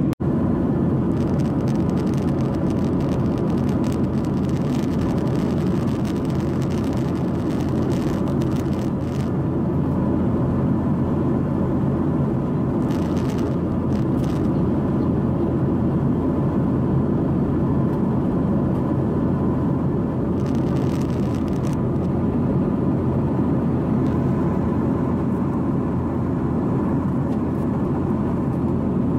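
Steady cabin drone of a Boeing 737-800 in flight, heard from a window seat over the wing: engine and airflow noise, deep and even, with a faint steady hum on top.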